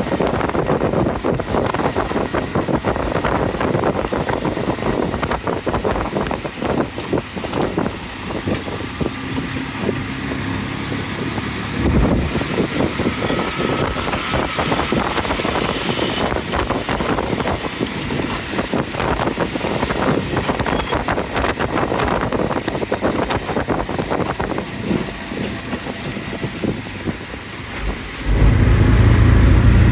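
A road vehicle running through rain, with a dense steady hiss of rain and road noise. A louder low rumble comes in near the end.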